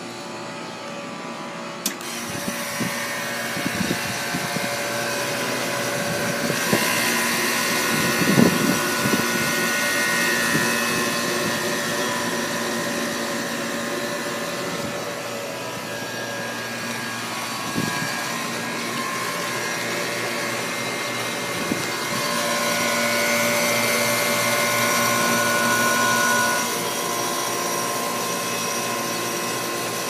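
Outdoor condensing unit of a central air conditioner running: a steady whir from the condenser fan with the compressor's hum and several steady tones under it. A few short knocks sound over it.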